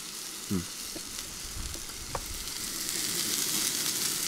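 Beef frying, with a steady sizzle that grows louder toward the end.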